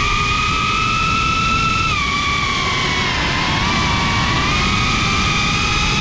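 FPV quadcopter's brushless motors whining over a rushing of propeller wash and wind, heard from the drone itself. The whine sags in pitch about two to three seconds in, then climbs back.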